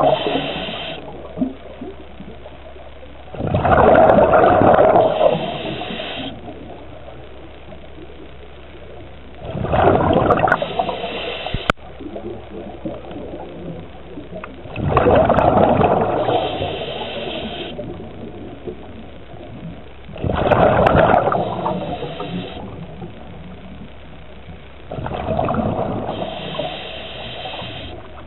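Scuba diver breathing through a regulator underwater: a rushing gush of exhaled bubbles about every five and a half seconds, each followed by a short, higher-pitched hiss.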